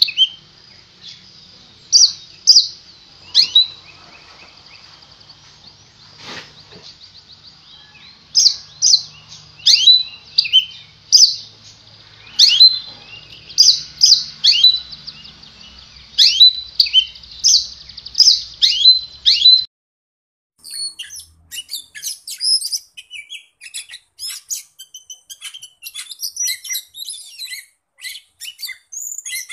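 Caged oriental magpie-robin singing a run of loud, clear whistled notes, about one or two a second, over a steady high hiss. About 20 seconds in, the sound cuts to a magpie-robin singing a quicker, scratchy chatter of higher notes.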